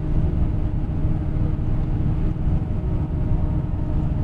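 Steady low rumble of a coach bus on the move, heard inside the passenger cabin, with a faint steady engine hum.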